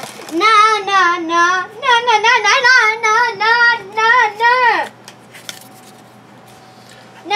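A young child singing a wavering, sing-song tune in short syllables, which stops about five seconds in.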